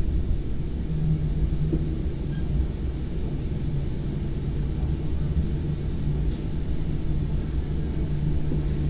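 Steady low running rumble heard inside the upper deck of a Virginia Railway Express Gallery IV bilevel commuter coach in motion. A steady low hum joins the rumble about a second in.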